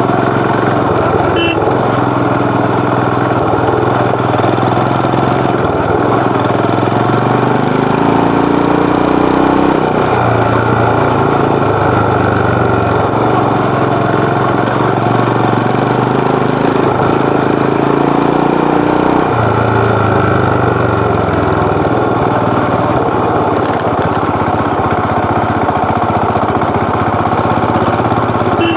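Royal Enfield Himalayan BS6's 411 cc single-cylinder engine and exhaust under way, its revs climbing and then dropping with throttle and gear changes, about ten seconds in and again about nineteen seconds in.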